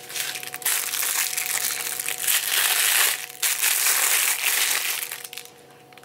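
Thin plastic bag and plastic wrappers crinkling loudly as artificial lemons are handled and pulled out, dying down near the end.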